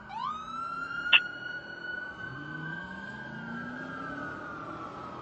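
Emergency-vehicle siren: it glides quickly up into a wail, holds a long steady tone, then slowly sinks, with a second tone falling alongside near the end. A brief, sharp high blip about a second in is the loudest sound, and a vehicle engine revs up faintly underneath.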